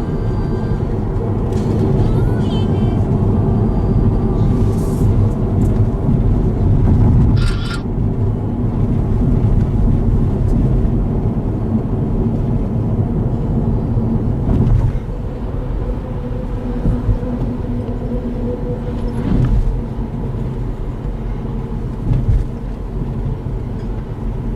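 Road noise inside a car cruising on an expressway: a steady drone of tyres and engine. The drone steps down a little in loudness about fifteen seconds in.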